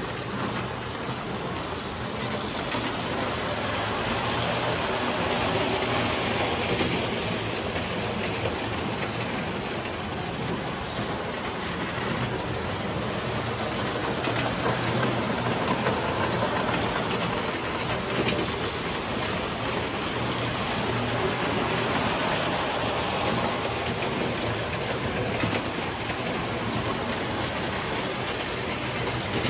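Tinplate toy electric train running around its track: a steady metallic rattle of wheels on tin rail with the whir of its motor, growing a little louder and softer as it circles.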